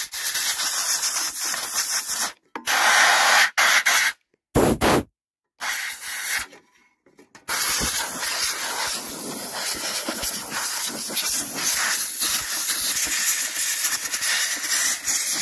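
Compressed-air blow gun hissing in blasts as it blows packed grass clippings out from around the ignition coil and flywheel of a Briggs & Stratton mower engine. The air cuts off and restarts several times in the first half, with the longest pause about six to seven seconds in, then blows steadily.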